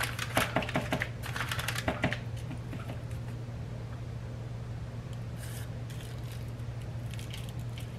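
Parchment paper crinkling and rustling under a hand rubbing seasoning into raw chicken breasts: a quick run of small crackles in the first two seconds, then only faint rustles over a steady low hum.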